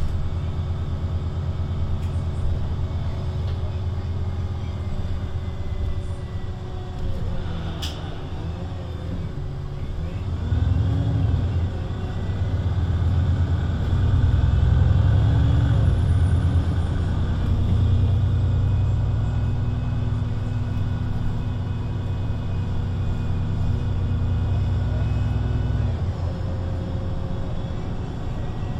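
VDL Citea LLE 120 city bus's diesel engine idling, heard from inside the passenger cabin while the bus stands still. There is a sharp click about eight seconds in, the engine sound grows louder from about fourteen seconds, and a steady hum cuts off abruptly near the end.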